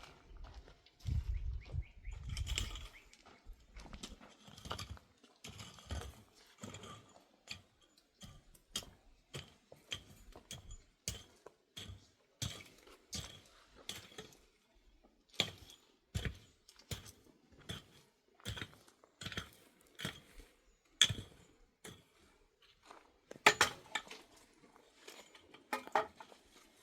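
A series of sharp knocks and clicks at an uneven pace of about one or two a second, with a few dull low thumps in the first few seconds.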